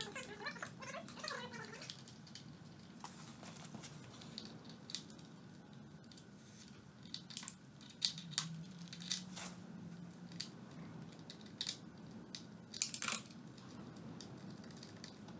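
Scattered light clicks and rustles of plastic wiring connectors and loose wires being handled and plugged together while a new wiring loom is fitted to a small quad bike, over a faint low hum.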